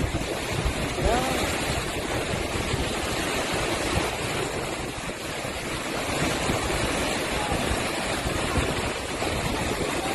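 Typhoon wind and surging sea water making a steady rushing noise.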